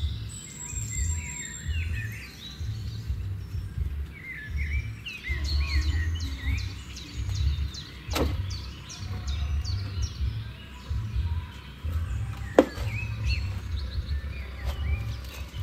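Many small birds chirping, with short curving calls repeating all through, over a low, uneven rumble. Two sharp knocks cut in, one about halfway through and a louder one some four seconds later.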